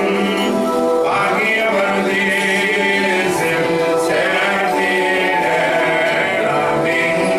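A small congregation of men and women singing a hymn of the Syriac Christian evening prayer together from prayer books, in sustained, chant-like sung lines.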